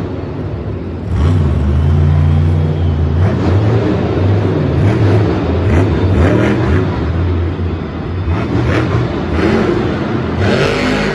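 Monster truck engines revving loudly, the pitch rising and falling as the truck accelerates and slows on the dirt course.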